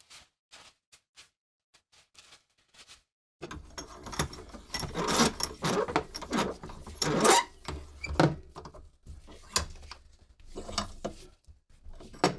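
Faint soft rustles and clicks, then from about three seconds in a bench vise is cranked shut on a rusty socket bayonet. Its steel sliding handle clunks and rattles against its stops in a string of loud metallic knocks, with scraping of metal on metal.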